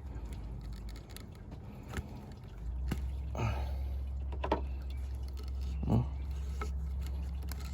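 A handful of sharp clicks and clinks from pliers and hose fittings being handled, over a steady low hum.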